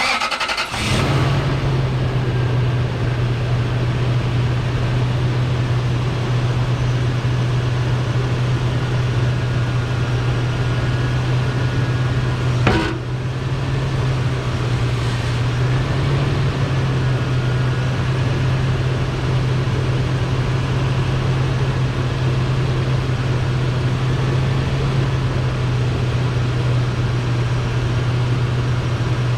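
2001 Toyota Sequoia running with a steady low hum, and one sharp clunk about 13 seconds in: the clunk the truck makes when turning.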